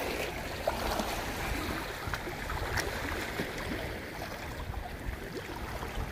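Sea water washing steadily, with wind rumbling on the microphone and a few faint ticks.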